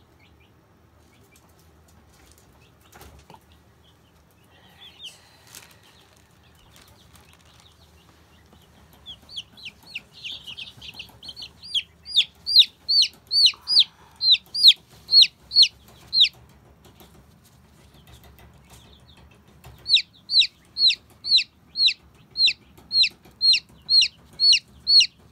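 Baby chick peeping loudly: shrill, falling peeps repeated about three a second, in two long runs with a pause of a few seconds between them. These are the distress peeps of an injured chick being held while its wound is dabbed.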